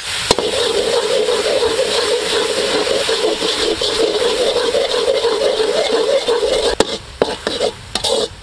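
Dark sauce sizzling and bubbling in a hot steel wok while a metal spatula stirs it. Near the end the spatula scrapes and knocks against the wok several times.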